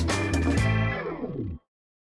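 Background music ending on a held chord that cuts off suddenly about a second and a half in.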